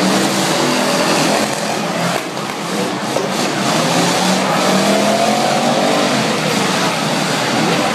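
Race cars' engines running around the oval track, their pitch rising and falling as they pass, over a steady wash of noise.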